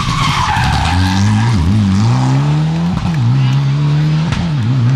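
Mitsubishi Lancer Evolution rally car sliding through a tarmac hairpin with a short tyre squeal. Its turbocharged four-cylinder engine then revs hard as it accelerates away, the pitch climbing and dropping with three or four quick upshifts.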